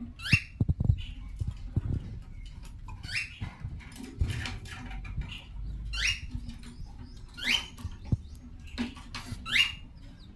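A pet parrot giving short, high-pitched squeaks that rise in pitch, repeated about every one to two seconds, over low knocks and rustling.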